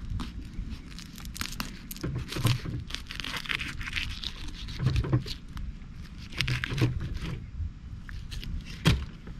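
Fillet knife cutting through a bluefin tuna's skin and flesh up behind the head: a run of irregular scrapes and clicks, with a sharper knock near the end.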